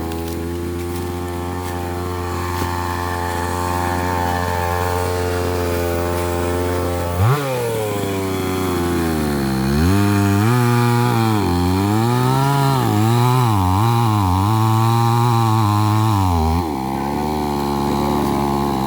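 Chainsaw running for about seven seconds, then its pitch repeatedly dips and recovers while cutting tree wood, steadying again near the end.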